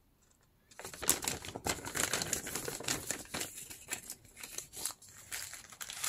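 Stiff, aged paper pages and tags of a handmade junk journal rustling and crinkling as they are handled and turned. The rustling is irregular and starts just under a second in, after a moment of dead silence.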